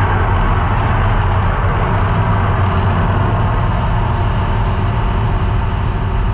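A steady, loud, deep rumble from the Mirage volcano show's eruption sound effects, with a crowd murmuring under it.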